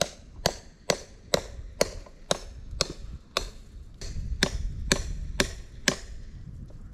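Steady blows of a hand tool striking a wooden fence post, about two a second, a dozen or so sharp strikes that stop near the end.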